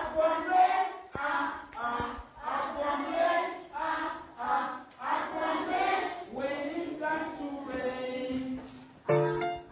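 A children's song about umbrellas and rain, sung by a group of voices with about one syllable every half second. Near the end the singing gives way to clearer, held notes.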